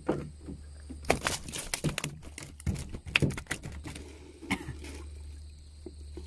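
Irregular knocks, clicks and clatter of gear being handled, densest in the first half, over a steady low hum.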